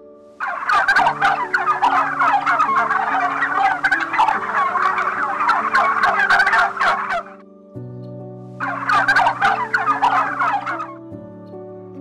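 Domestic tom turkey gobbling: a long bout of rapid, rattling gobbles, then after a short pause a second, shorter bout. Soft background music plays underneath.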